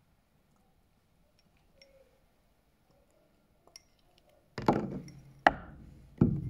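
A few faint ticks, then three sharp knocks and clinks of hard objects being handled, the loudest starting about two thirds of the way in.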